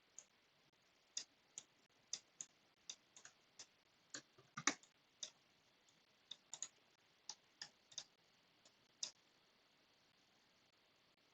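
Irregular, soft clicks of a computer mouse and keyboard during screen work, a few each second with a louder cluster about halfway through, stopping about three quarters of the way in.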